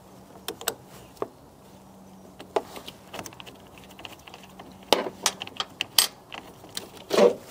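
Scattered metallic clicks and clinks from an 8 mm wrench loosening a car battery's negative terminal bolt, and from the cable end being worked off the terminal.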